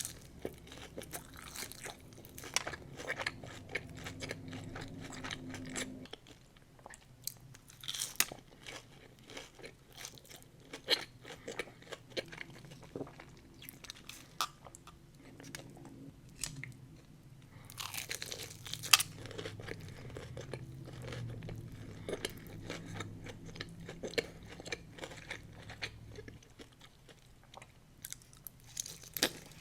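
A person chewing and biting crunchy food, with irregular crisp crunches and a louder bite about nineteen seconds in. A low hum comes and goes in the background.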